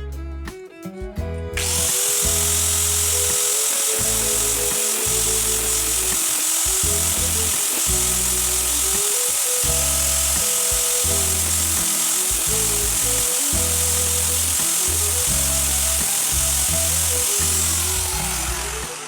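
An electric power tool runs at speed with a steady high whine and a loud hiss, starting about a second and a half in, then winds down near the end as the whine falls in pitch. Background music plays throughout.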